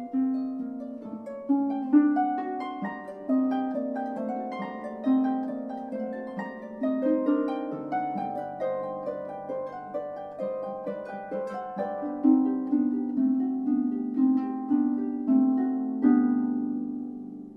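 Instrumental background music: a plucked-string melody, each note struck and left to ring and fade. It stops near the end.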